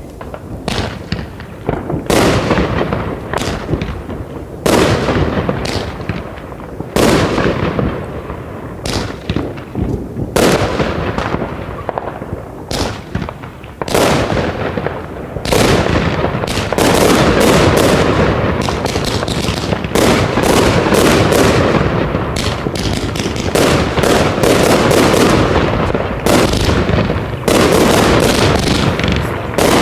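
Consumer category F2 firework batteries (cakes) going off: sharp bangs every second or so at first, then from about halfway a dense, almost unbroken barrage of bangs and crackle.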